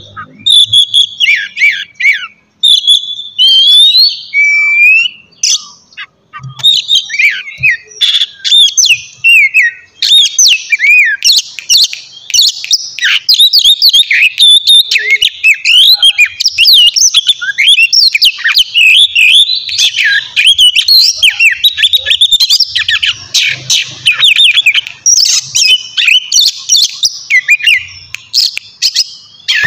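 Oriental magpie-robin singing a loud, fast, varied song of whistled and chattering phrases. There are brief pauses in the first few seconds, then the song runs on without a break.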